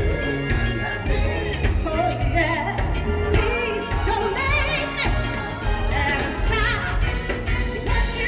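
A live R&B band with a woman singing lead through the PA, her voice wavering and sliding in sustained runs over a steady bass and drum beat.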